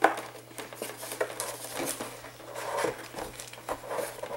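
Handling noise from fitting wing tips onto an RC model plane's wing: a sharp click at the start, then scattered light clicks and rustling as the parts are pressed into place.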